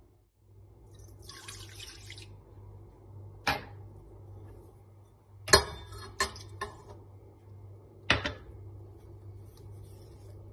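A short pour of milk into a stainless steel stand-mixer bowl, then a few sharp knocks and clinks as a small glass bowl taps against the steel bowl while an egg is tipped in. The loudest knock comes about halfway through.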